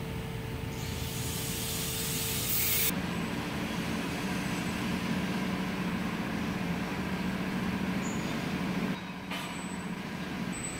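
Metal lathe running with a steady mechanical hum. A high hiss about a second in gives way, about three seconds in, to a lower, louder drone, which drops off shortly before the end.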